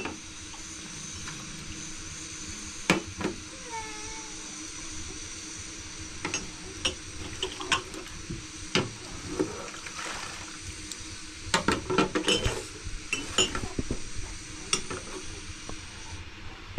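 Small glass tea glasses clinking against each other and a plastic tray while being rinsed with water poured from a plastic pitcher, in scattered irregular taps, over a steady background hiss.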